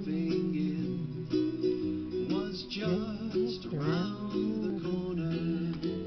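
Background music: an instrumental passage of a song with strummed guitar.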